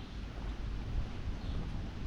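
Outdoor street ambience dominated by a low, fluctuating rumble of wind on the microphone.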